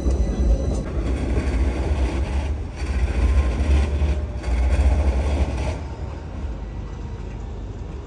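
Street ambience next to tram tracks. A passing tram's whining motor tone dies away about a second in, leaving a heavy, unsteady low rumble that eases off about three quarters of the way through.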